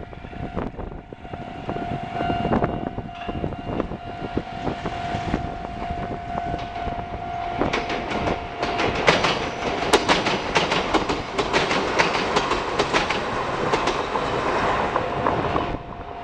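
Chichibu Railway 1000 series electric train, a former JNR 101 series, approaching and passing close by, its wheels clacking over the rail joints. The clatter is loudest as the cars go past and falls away sharply near the end, over a steady high tone.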